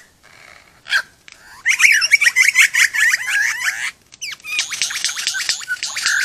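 Male superb lyrebird singing his display song: dense, rapid runs of squeaky, sweeping whistled notes, his own calls rather than mimicry. The song starts about two seconds in, breaks off briefly around four seconds, then resumes.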